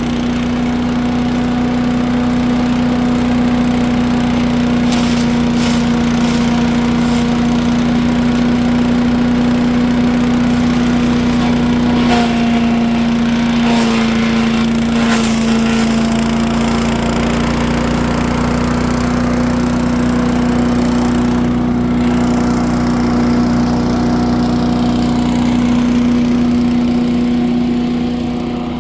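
A motor running steadily at one pitch, with a few short sharp cracks and a brief change in its tone partway through, as if briefly loaded.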